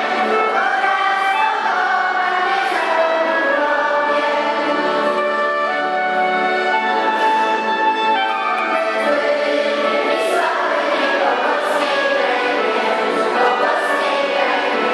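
Children's choir singing a Polish patriotic song together, steady and continuous.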